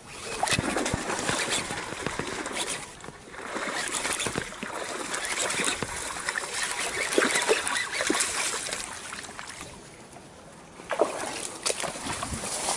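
Splashing and crackling rustle as a hooked snakehead is hauled in through weedy water and onto the bank. About ten seconds in it eases off briefly, and then come sharper bursts as the fish thrashes on the ground.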